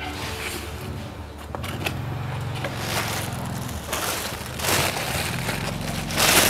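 Clear plastic bag crinkling and rustling as it is opened and handled, in loud bursts about four and five seconds in and again near the end, over a steady low hum.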